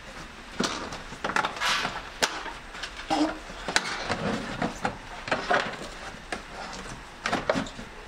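Rustling and irregular knocks and clicks as the Honda S2000's trunk carpet lining and trim are pulled loose by gloved hands.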